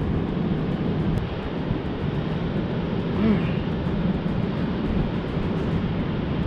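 Steady low rumbling noise of wind on the microphone, with a brief vocal sound about halfway through.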